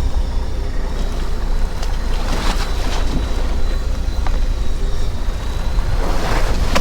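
Fishing boat at sea: a steady low rumble with a faint steady high whine, and two swells of rushing water noise, about two and a half seconds in and near the end.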